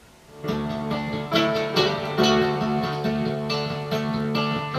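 Music with plucked strings, played through the loudspeaker of a homemade experimental transistor audio amplifier that is running as a class B amplifier with almost no quiescent current. The music starts about half a second in.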